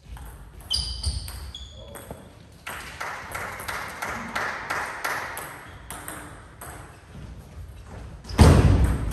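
Table tennis ball clicking sharply off bats and table in a rally of quick ball strikes. A loud thump comes near the end.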